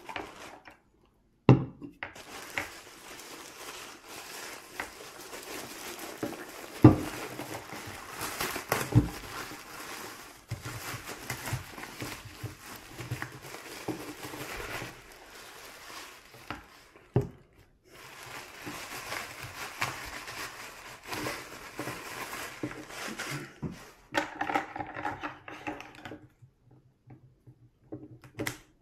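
Rustling and crinkling of packaging wrap as it is pulled off a small blender's parts, with a few sharp knocks along the way.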